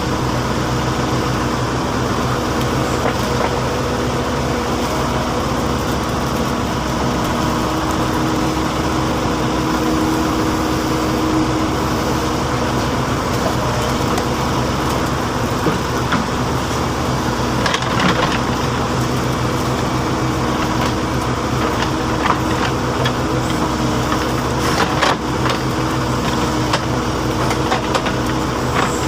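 Heavy diesel engine of a backhoe or dump truck running steadily, with a few short clunks in the second half.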